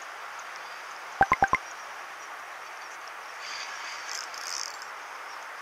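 Four sharp clicks in quick succession about a second in, over a steady outdoor hiss, with a faint scratchy rustle later on.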